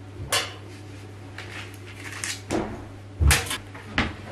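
Laundry being handled at a front-loading washing machine: a few separate knocks and clunks of the door and drum, the loudest a heavy thud a little past three seconds in.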